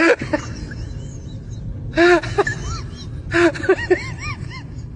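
Short, high squeaky calls in quick runs of a few at a time, about two seconds in and again about three and a half seconds in, over a steady low rumble.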